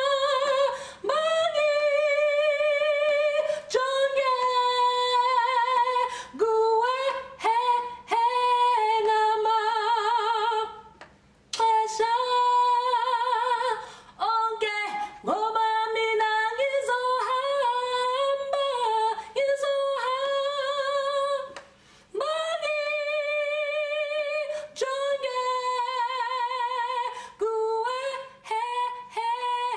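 A woman singing solo and unaccompanied, in long held notes with vibrato. She breaks off briefly twice.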